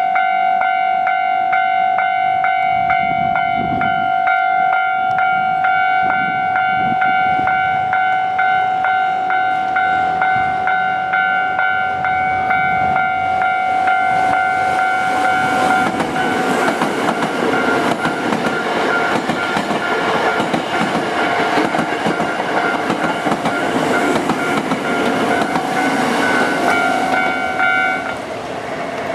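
Japanese railway level-crossing alarm ringing with a steady, rapidly repeating electronic ding. About halfway through, a Hankyu electric train runs over the crossing with rumble and wheel clatter, which fades out near the end while the alarm keeps ringing.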